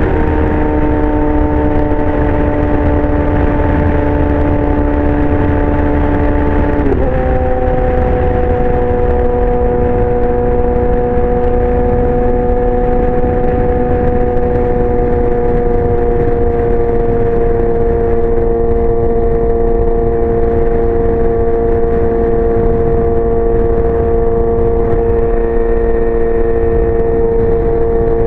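2019 Yamaha R6 inline-four with a Leo Vince exhaust, running at a steady engine speed while riding, with one quick gear change about seven seconds in. The engine tone then holds nearly steady and sags slowly.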